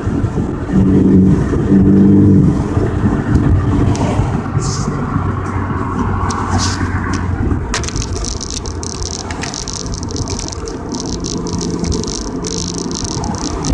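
Turbocharged Ford Focus ST engine pulling hard under full throttle through a straight-piped MagnaFlow exhaust with resonator and muffler deleted, heard through open car windows. It is loudest for the first couple of seconds, then eases into steadier cruising engine and road noise, with a steady hiss coming in about eight seconds in.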